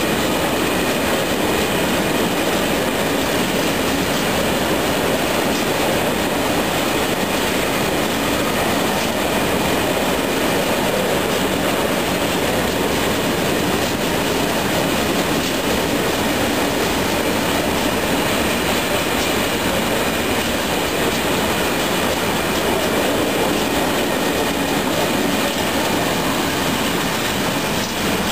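Freight train of covered sliding-wall wagons rolling past close by: a steady loud rumble and clatter of steel wheels on the rails, with a faint squeal from the wheels on the curve.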